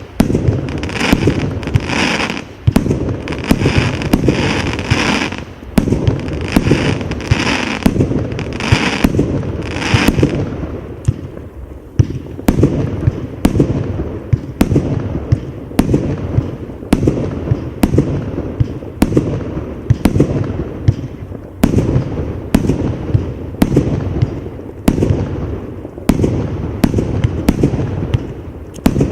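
Absolute Fireworks 'Rolling Thunder' 150-shot compound firework cake firing shot after shot, one to two a second, each a low launch thump and a sharp bang. In roughly the first ten seconds the shots also carry a bright hiss, after which they are mostly thumps and cracks.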